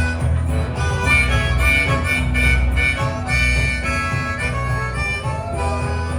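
Live band music with a harmonica playing the lead over guitar and a steady bass line.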